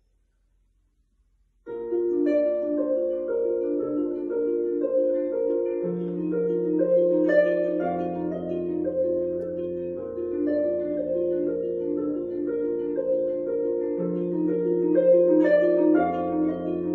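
Harp playing after about a second and a half of near silence: flowing broken chords plucked over low bass notes that change every two seconds or so.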